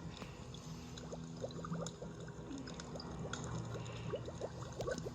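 Fire crackling: irregular small pops and snaps, several a second, over a low steady hiss.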